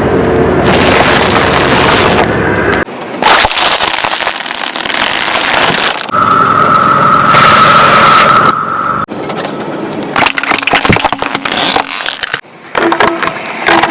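Crunchy objects being crushed by a car, cracking and snapping in several separate stretches that cut off abruptly, with a steady high tone for about three seconds in the middle.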